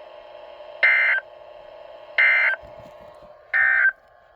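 EAS end-of-message (EOM) data bursts from a weather radio broadcast: three short, loud, warbling digital bursts about a second and a half apart, marking the end of the warning message.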